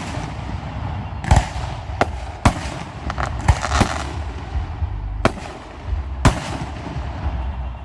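Aerial fireworks shells bursting: about seven sharp bangs at irregular intervals, a second or less apart at times, over continuous crackling.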